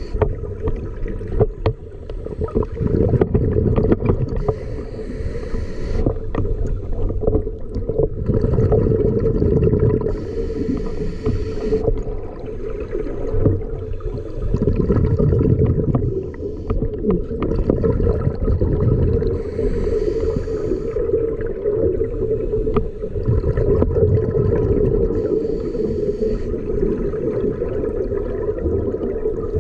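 Scuba breathing heard underwater through a camera housing: a steady, muffled rumble of regulator bubbles and water, with a short hiss of breath through the regulator every several seconds.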